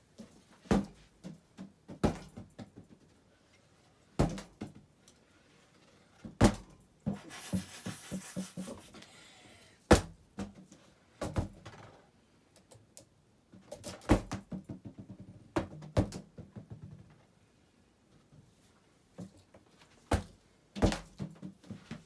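A balloon caught in a spinning Hunter Low Profile Plus ceiling fan, thumping and knocking against the blades at irregular moments, about a dozen times. A short rushing hiss comes near the middle.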